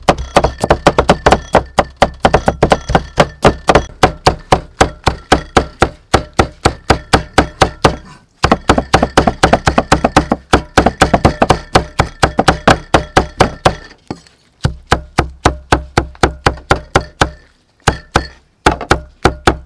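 Steel cleaver chopping rapidly on a thick round wooden chopping block, mincing garlic and roasted red chilies: even knocks about four or five a second, with short pauses about eight and fourteen seconds in.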